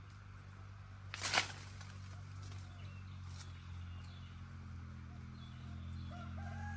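A rooster crowing, one drawn-out call starting near the end. About a second in there is a short, loud rustling crack, louder than anything else, and a steady low hum runs underneath.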